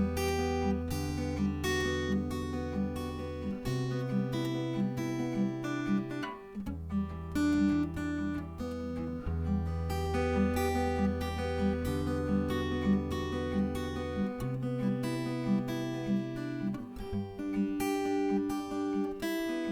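Acoustic guitar strummed in a steady rhythm, with low notes ringing under each chord and the chords changing every few seconds: an instrumental passage with no singing.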